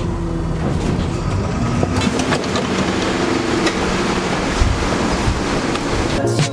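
Steady rumble of a bus ride and street traffic, with a low engine hum underneath.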